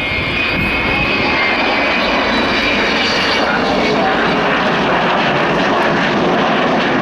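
Avro Vulcan bomber's four Rolls-Royce Olympus turbojets on a low flypast: loud, steady jet noise, with thin high whining tones that fade out a few seconds in.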